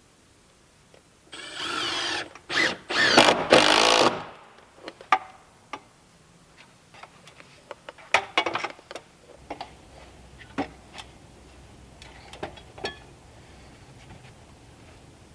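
A power drill running in several short bursts for about three seconds, then a series of scattered knocks and clicks.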